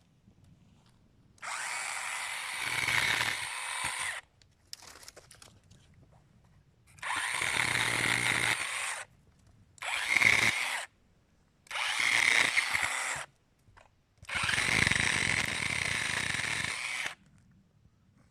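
An electric power tool run in five short bursts of one to three seconds each, each run starting and stopping abruptly with quiet in between.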